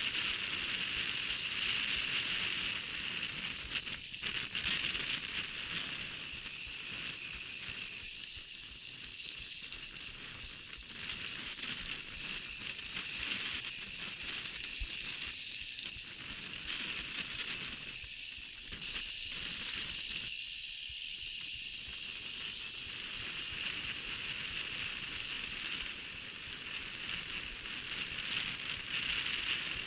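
Mountain bike riding over a gravel dirt track: a steady rush of tyres crunching on loose gravel and the bike rattling over the bumps, with wind on the camera's microphone.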